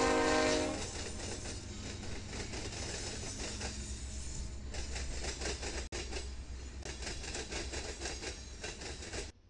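Union Pacific freight train passing: a multi-note locomotive air horn ends about a second in, then the diesel locomotives rumble and the freight cars roll by with fast, continuous clicking and clattering of wheels on rail. The sound cuts off suddenly near the end.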